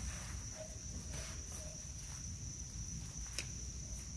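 Steady chorus of singing insects, a continuous high-pitched drone, with one sharp click a little over three seconds in.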